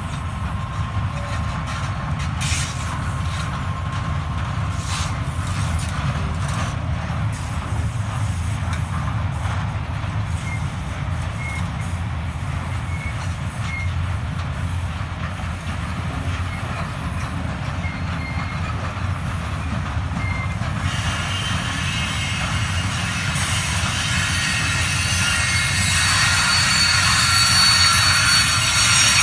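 Loaded steel wagons of a heavy freight train rolling past, a steady low rumble with a few knocks. About two-thirds of the way through, the wheels start to squeal high-pitched, growing louder towards the end.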